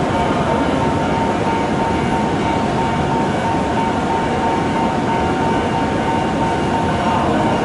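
JR 383 series electric train at the platform, giving a steady noise with a constant high whine.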